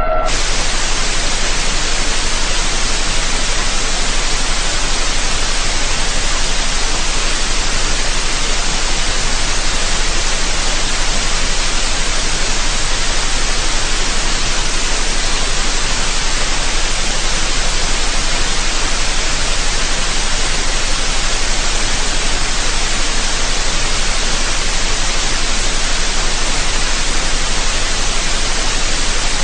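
Loud, steady static hiss that cuts in suddenly at the start and holds unchanged throughout.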